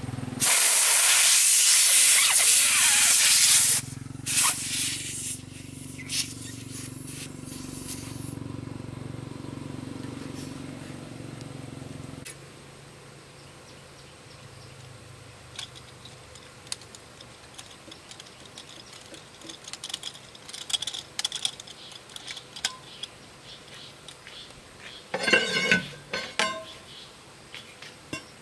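Air hissing loudly at a truck tyre's valve for about three seconds, then cutting off sharply and trailing into fainter hissing. Later come light metal taps and clinks from tyre tools, with a short run of louder knocks near the end.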